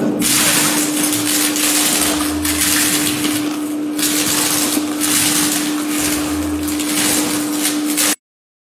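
Bare feet treading on a bed of broken tortilla chips: a dense, loud crunching and crackling that swells with each step, made as a foley stand-in for footsteps on crusty snow and ice. A steady low hum sits underneath, and the crunching stops abruptly near the end.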